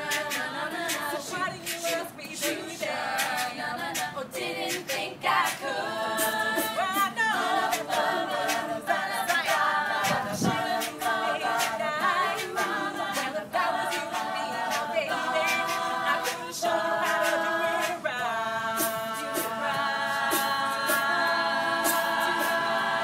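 Women's a cappella group singing in close harmony, a lead voice over backing voices, with sharp percussive clicks keeping time. Near the end they hold one long chord.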